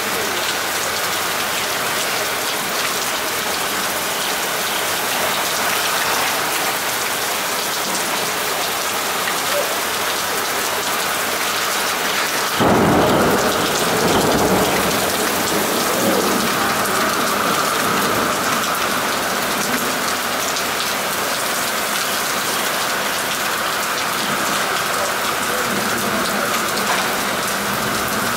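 Steady rain falling and splashing on a city street. About halfway through, a deep rumble starts suddenly and fades away over a few seconds.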